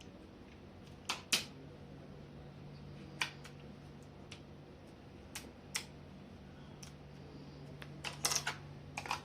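Scattered sharp clicks and taps of small parts and tools being handled against a laptop's plastic case during disassembly, a few single clicks and then a quick cluster near the end, over a steady low hum.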